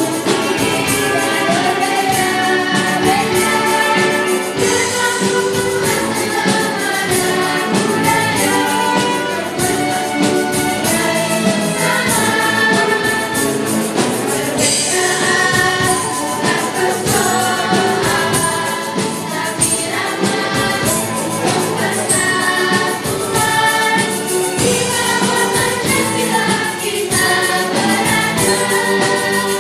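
Children's choir singing a song in unison, accompanied by a string orchestra with violins, at a steady, full level.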